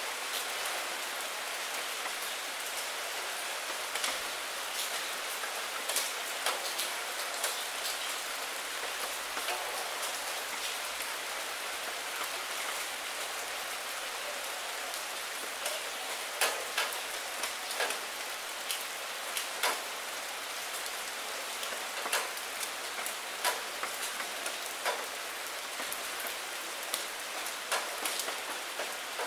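Steady rain falling on a shallow puddle and wet maple leaves: an even hiss with many scattered, sharper drop splashes and ticks.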